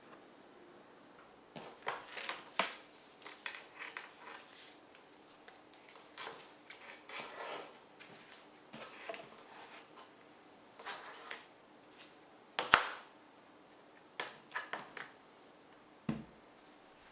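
Binoculars and their packaging being handled: scattered rustles, light knocks and clicks, with one sharp click about two-thirds of the way in.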